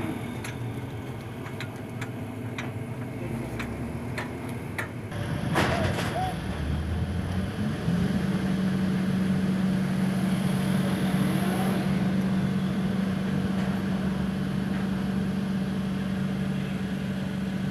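SANY mobile crane's diesel engine running under load while it hoists the crate, with a few sharp knocks in the first five seconds. About eight seconds in the engine steps up to a higher, steady speed and holds it.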